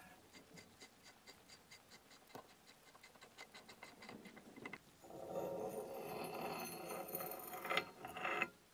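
Brass burner tube of an antique blowtorch being screwed into the brass tank fitting. Light, even ticking at about five a second, then about halfway a louder grinding scrape of brass threads that stops suddenly near the end.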